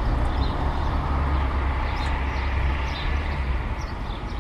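City street ambience: a steady low rumble of road traffic with an even wash of street noise, easing a little near the end. Short high chirps, likely birds, come through faintly over it.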